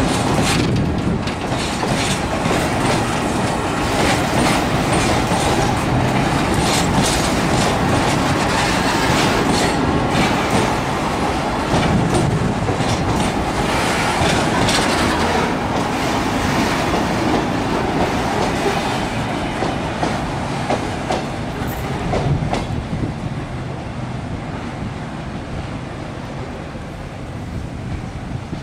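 Empty oil tank cars of a freight train rolling past close by, their steel wheels clicking over the rail joints above a steady rumble. The sound fades over the last several seconds as the end of the train passes and moves away.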